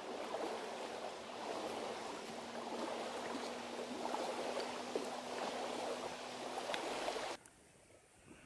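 Freshly lit kindling fire of split wood and feather sticks crackling and hissing with many small pops as it catches. The sound cuts off suddenly about seven seconds in, leaving much quieter sound.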